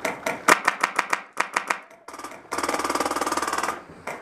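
Airsoft guns firing: a string of rapid shots at about seven a second, then after a short pause a longer, much faster full-auto burst lasting about a second.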